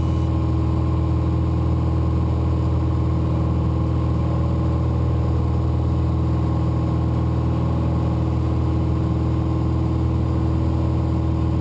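Light single-engine airplane's piston engine and propeller droning steadily, heard inside the cabin.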